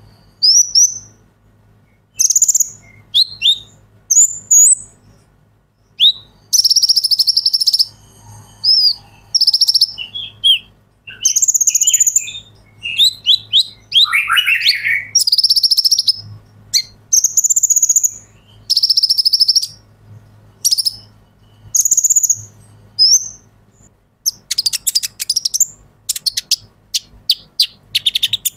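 Male Van Hasselt's sunbird (kolibri ninja) singing: a lively string of high, thin chirps and short buzzy trills, with a fast stuttering run of notes near the end.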